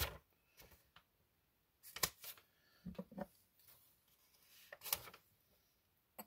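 Quiet, scattered rustles and light clicks of plastic packaging being handled: a card's top loader wrapped in cellophane and tape being turned over and worked at. About seven short sounds, spaced irregularly.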